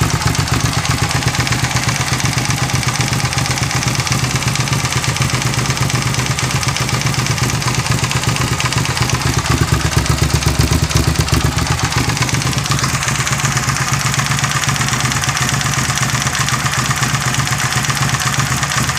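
Suzuki SV650S 90-degree V-twin engine running near idle with a clattering knock, the knock its owner is showing. It gets slightly louder around ten seconds in.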